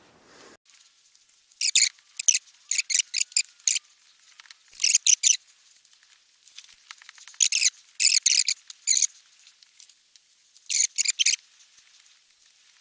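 Toggle clamps on a bandsaw-blade fixture being worked and adjusted: about five clusters of quick, light metallic clicks and scrapes, with quiet gaps between them.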